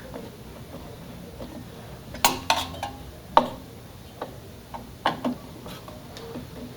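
Sharp clicks and taps of hard metal and plastic computer parts being handled. They come in two short clusters, about two to three and a half seconds in and again about five seconds in.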